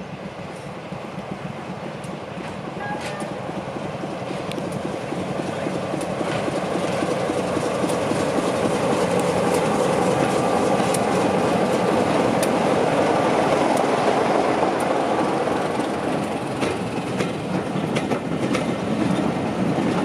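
BR Sulzer Type 2 diesel locomotive approaching with a train of coaches, its engine growing steadily louder to a peak about halfway as it passes close by. The coaches then roll past with wheels clicking over the rail joints.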